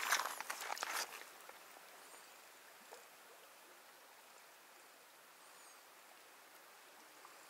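Faint steady rush of a flowing river. About the first second carries a run of clicks and rustling, loud against the water.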